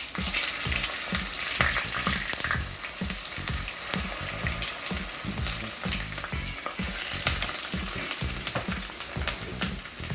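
Potato wedges frying in oil in a pan, a steady sizzle with light clicks and taps as they are turned with chopsticks.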